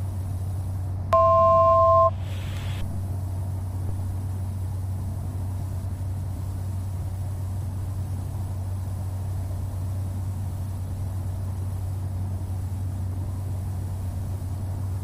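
Cessna 208 Caravan's PT6A turboprop engine and propeller in flight as a steady low drone, heard through the headset intercom feed. About a second in, an electronic cockpit alert tone of two steady pitches sounds for about a second.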